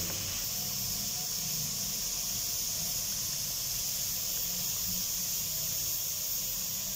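Taro root (arbi) pieces in hot ghee in a wok, giving a steady sizzle, fried through and ready to come out of the oil.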